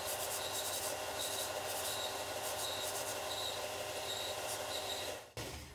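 Clarke 4-by-36-inch belt sander running while the end of a Micarta pick handle is sanded round on its belt: a steady machine hum with a light tick repeating about every two-thirds of a second. It cuts off abruptly shortly before the end.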